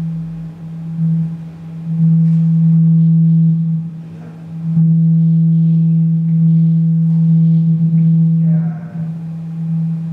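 Low, steady electronic drone tone with a few fainter higher overtones, played through a loudspeaker. It swells loud and falls back in long stretches, loud for two or three seconds, then for nearly four.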